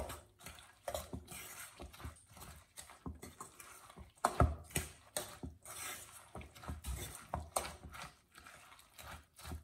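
A metal spoon stirring shredded potato batter in a stainless steel mixing bowl: a run of irregular scrapes and clinks of the spoon against the bowl.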